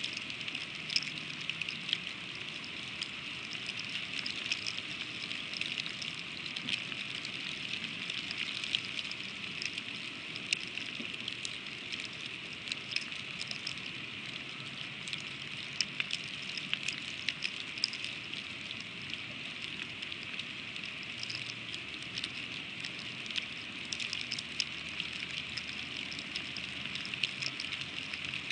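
Freezing rain pattering steadily: an even hiss with many small, sharp, irregular ticks of drops striking.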